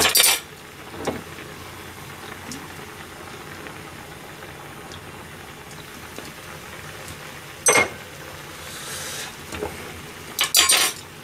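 Squid simmering in a brown broth in a small pan, bubbling steadily, with a few sharp clinks: one at the start, one about two-thirds through and a quick cluster near the end.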